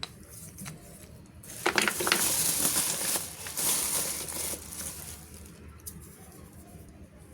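Packaging rustling and crinkling as it is handled, for about three seconds, with a few small clicks before and after.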